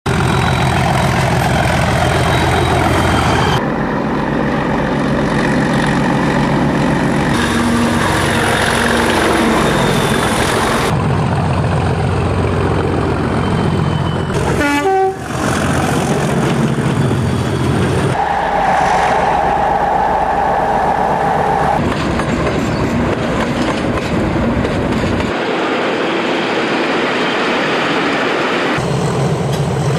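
British Rail Class 37 diesel-electric locomotives running, heard as a run of short clips that cut abruptly from one to the next every three to four seconds.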